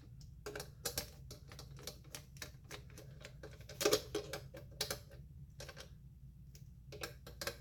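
Irregular light clicks and clinks of small parts being handled during a vacuum pump repair, with a louder knock about four seconds in, over a faint steady hum.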